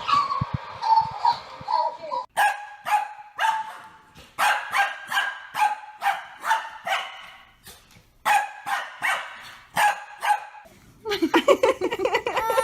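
Dog barking in quick, repeated barks, about two or three a second, with a short break about eight seconds in. Near the end a long rising wail begins.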